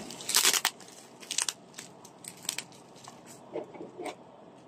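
Bubble-wrap packaging crinkling and tearing as hands pull it open at a cut. A loud burst of crackles about half a second in, then scattered single crackles.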